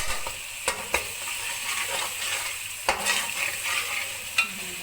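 Onion, ginger-garlic and tomato frying in oil in a kadai, sizzling steadily while a spoon stirs. A few sharp clicks of the spoon against the pan break in along the way.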